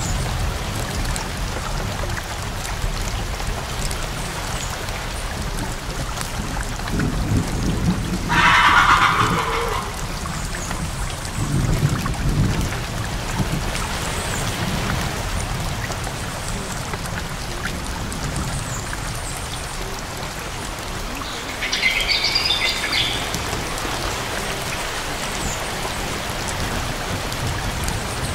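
Recorded rain falling steadily as a background track, with low rumbles of thunder about a third of the way in. There are two short, louder swells of hissing noise, the stronger one about a third of the way in and another past the three-quarter mark.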